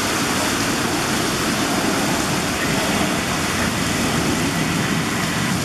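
Heavy rain hissing steadily, mixed with the roar of an Airbus A321's jet engines at takeoff power as it accelerates down the runway.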